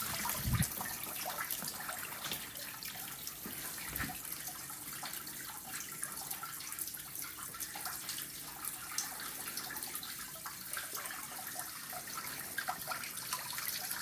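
Distilled water running through the cooling system and splashing out of the open water pump drain in a steady trickling stream as the radiator and hoses are flushed. A soft thump comes about half a second in and another about four seconds in.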